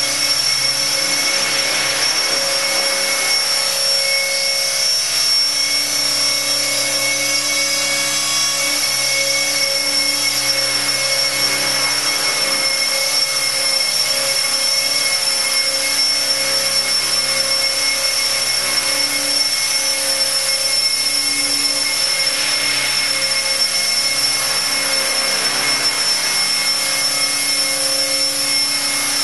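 Align T-Rex 600 electric RC helicopter in flight: the steady whine of its brushless motor and gears over the rotor noise.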